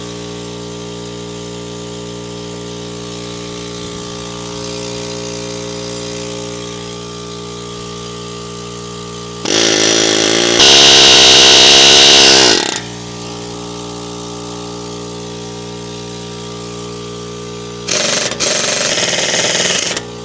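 Pneumatic air hammer firing in two loud bursts against a seized bolt with a stripped head, about three seconds long around ten seconds in and about two seconds near the end. A steady machine hum runs underneath.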